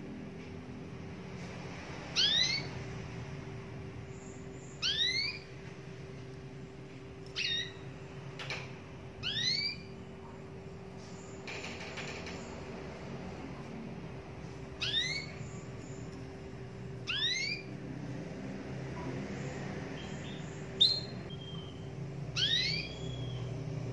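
Domestic canary giving short single call notes, each a quick rising whistle, about eight of them spaced every two to three seconds.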